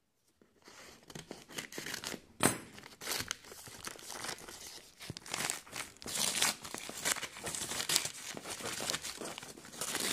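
Brown kraft paper wrapping on a parcel being cut with scissors and torn open by hand, crinkling and rustling irregularly, with one sharp click about two and a half seconds in.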